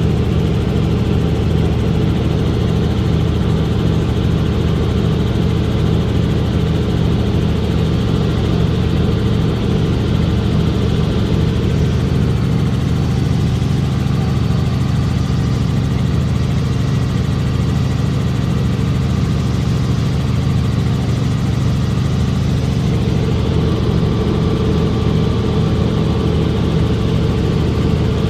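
Helicopter in flight heard from inside the cabin: a loud, steady drone of engine and rotor that does not change.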